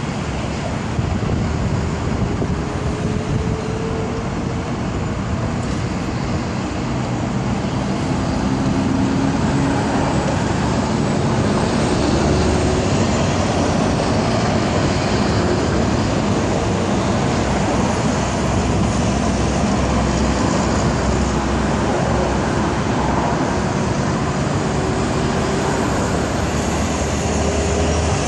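Steady road traffic noise, a continuous rush of tyres and engines, with a few faint engine tones that slide in pitch as vehicles pass.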